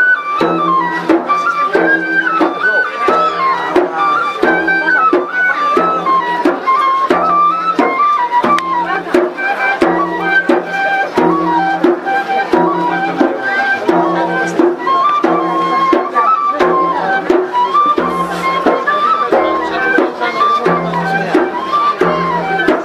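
Traditional folk music: a high, piping melody moving in short steps over a regular drum beat.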